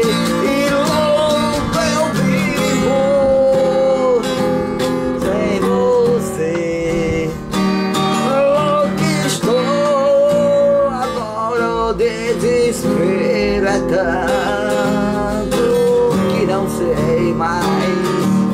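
Instrumental music: a strummed acoustic guitar under a held, wavering melody line that slides between notes.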